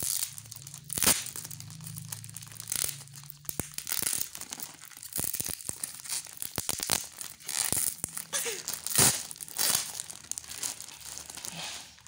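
Thin clear plastic wrap crinkling and tearing as hands pull it open around a bundle of folded underwear. The crackles come irregularly, with the loudest about a second in and again near nine seconds.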